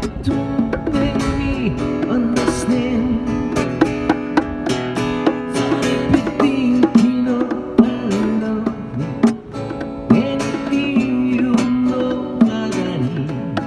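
Music with acoustic guitar playing an instrumental passage, with plucked notes and a moving melody line.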